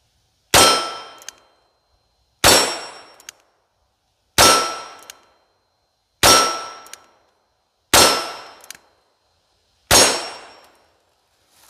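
Russian Nagant revolver firing six 7.62×38R shots at a steady pace, about one every two seconds. Each shot is followed by the clang of the steel gong target ringing and dying away over about a second.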